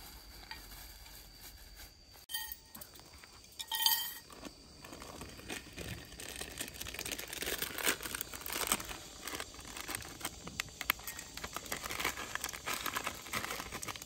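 Plastic packaging crinkling as an instant noodle packet is handled and torn open, with a brief louder moment about four seconds in and busier crinkling through the second half.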